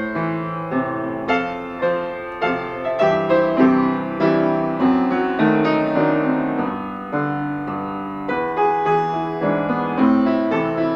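Solo piano playing a slow, gentle classical-style piece, notes struck and left to die away in a flowing melody over sustained bass notes.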